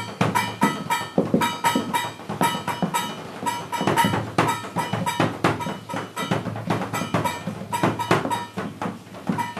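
Instrumental music played live, led by fast, busy percussion: many quick strikes a second with a steady ringing tone over them.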